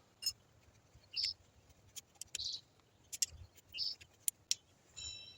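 Scattered light clicks and short scrapes of a new oil filter being handled and pushed into the filter housing of a Yamaha TW200 engine. A brief high ringing tone comes near the end.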